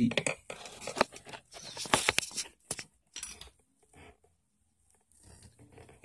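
Handling noise: scattered sharp clicks and rustling over the first three seconds or so, from hands and the moving phone against the homemade wooden turning rig.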